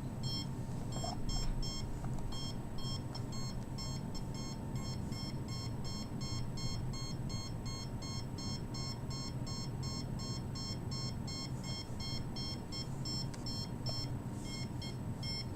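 Handheld RF/microwave radiation meter sounding its alarm: rapid, high-pitched electronic beeps several times a second, the warning for a high reading as it is held against the chest.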